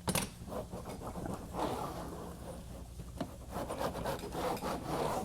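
Drywall corner roller worked back and forth under heavy pressure along a Hydrotrim drywall corner, pressing its adhesive into the gypsum board: a rubbing, scraping sound in several uneven strokes.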